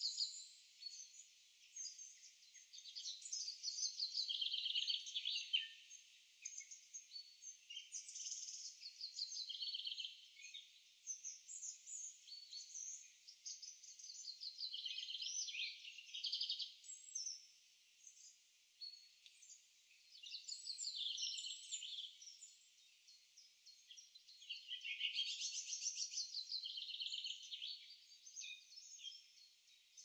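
Songbirds singing: high trilled phrases of quick repeated notes, each a second or two long, following one another with short pauses and sometimes overlapping.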